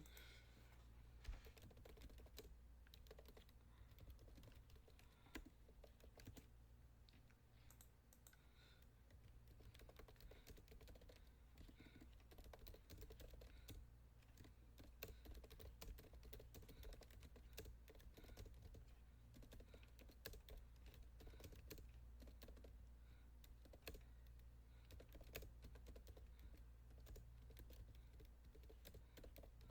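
Faint typing on a keyboard: rapid, irregular clicks over a low steady hum.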